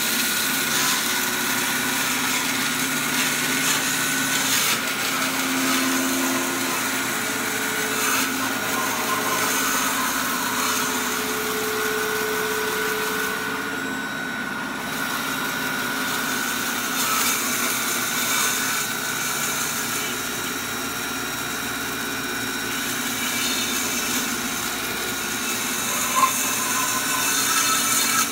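Bandsaw running steadily, slicing thin pieces off a cross-section of oak.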